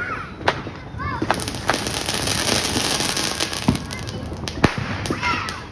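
Consumer fireworks going off: several sharp bangs, and a dense crackling hiss lasting a couple of seconds from about a second in. People's voices shout over it.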